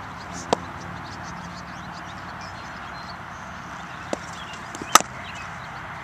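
Cricket bat striking a cricket ball at net practice: one sharp, loud crack about five seconds in, a second or so after a fainter knock. Another knock comes about half a second in, over a steady background hiss.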